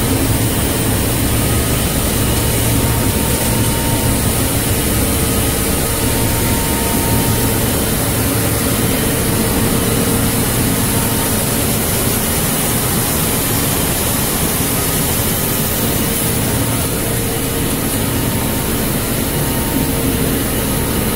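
Steady mechanical drone of a running PP meltblown fabric production line, an even rushing noise with a few faint steady hum tones underneath.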